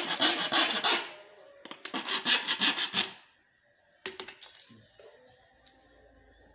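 Harsh rasping scrape in two bursts of about a second each, hard material rubbed or sawn against hard material, followed by a couple of faint clicks.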